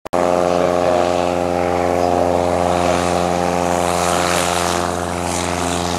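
Light single-engine propeller plane, a glider tow plane, with its piston engine running at a steady, unchanging pitch.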